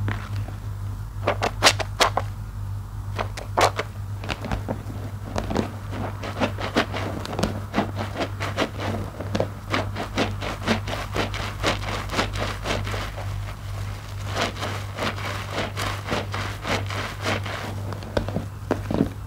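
Soap-soaked IKEA loofah squeezed and kneaded by hand in a basin of foamy water: wet squelching with a rapid crackle of popping foam and bubbles, densest from about five seconds in until near the end. A steady low hum runs underneath.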